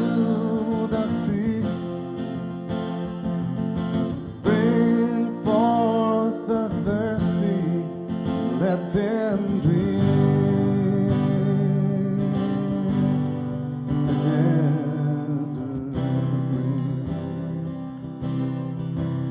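Acoustic guitar music: strummed chords, with a wavering melody line over them for about the first half.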